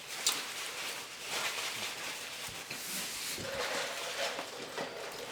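Close-miked chewing and wet mouth sounds of someone eating a slider sandwich, with irregular soft crackles and smacks.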